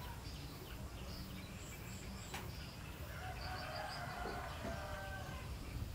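Birds chirping and calling, with short high chirps throughout and a run of lower calls a little past the middle, over a steady low rumble. A single sharp click comes about two and a half seconds in.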